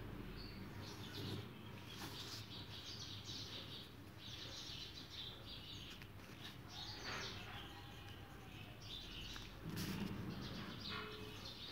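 Small birds chirping on and off, over a low steady hum.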